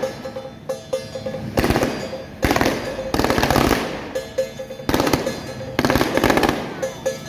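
Firecrackers going off in rattling bursts, four or five strings of rapid cracks each lasting about half a second to a second, over music with a quick steady beat.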